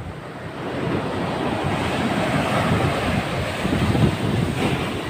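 Large ocean waves breaking and washing up the beach in a steady rush of surf that swells about a second in, with wind buffeting the microphone.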